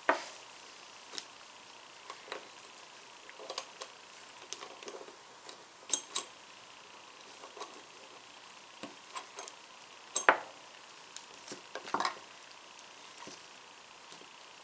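Scattered light metal clicks and taps as a small flathead screwdriver works the parts of a vintage Craftsman ratchet head during reassembly, with a few sharper clinks.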